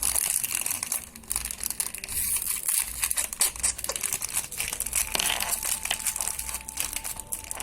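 Crunchy slime being squeezed and pressed by hand close to the microphone, giving a dense, continuous crackling and crinkling.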